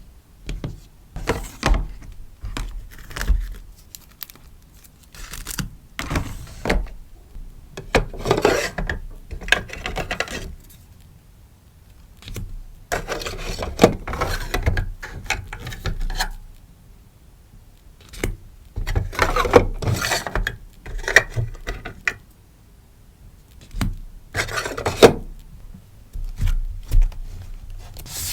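Crinkly sticker packaging and paper being handled and packed: bursts of rustling and crinkling with short pauses between them, and a few sharp taps.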